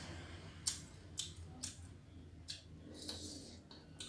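Quiet eating sounds from a person eating shrimp by hand: about six faint clicks and smacks, irregularly spaced, over a low background.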